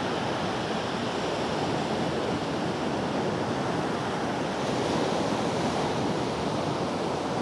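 Ocean surf breaking on a beach: a steady rushing wash of waves.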